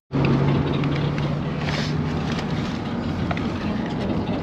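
Engine and road noise of a moving car heard from inside the cabin: a steady low drone under an even rush of tyre and wind noise.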